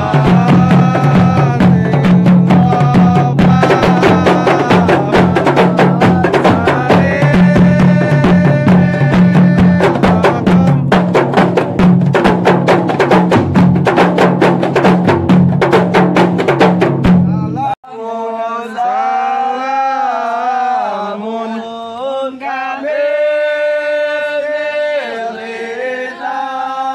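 An ensemble of kompang frame drums and a larger bass frame drum struck by hand in a fast, dense interlocking rhythm, with male voices chanting over it. About eighteen seconds in the drumming stops abruptly, and the group carries on chanting unaccompanied.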